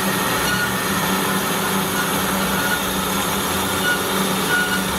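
Cosen AH-320H dual column automatic band saw running, a steady hum from its motor and hydraulics over even mechanical noise.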